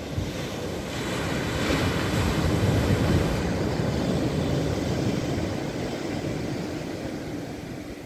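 Surf on a sandy beach: a long-period ocean swell wave breaks and its foam washes up the sand. The rush of water swells about a second in, peaks a couple of seconds later and slowly dies away.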